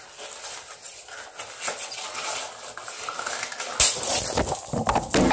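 Rubber water balloons squeaking and rustling as they are squeezed, then a balloon bursts suddenly about four seconds in and water splashes down into a bathtub.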